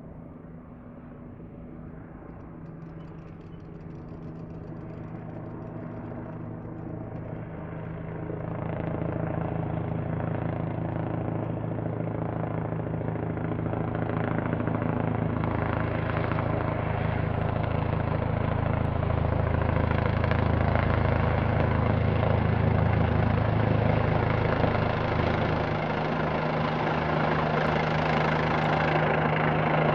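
Bell 429 twin-turboshaft helicopter approaching, its rotor and engine sound growing steadily louder throughout.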